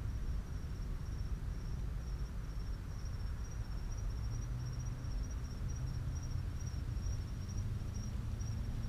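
Insects chirping in a steady, high, pulsing trill, over a low steady rumble.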